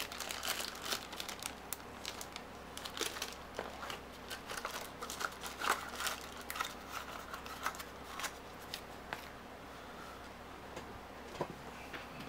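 Clear plastic packaging bag crinkling and rustling as it is handled, in many short, irregular crackles.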